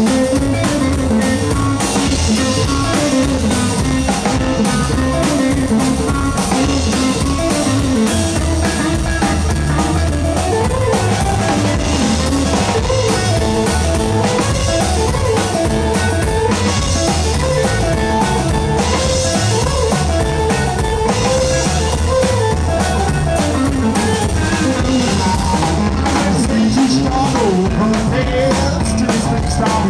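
Live rockabilly trio playing an instrumental stretch with no vocals: twanging electric guitar, a stand-up drum kit keeping a steady beat, and upright bass.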